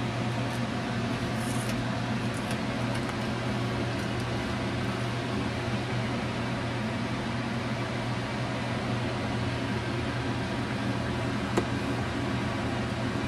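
A steady mechanical hum over an even hiss, unchanging throughout, with a single light click about three-quarters of the way through.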